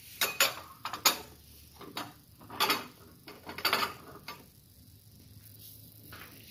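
Metal kitchen tongs clicking and clacking several times in the first second, then two longer rustling scrapes about two and a half and four seconds in as fried pastries are handled in a paper-lined plastic tub.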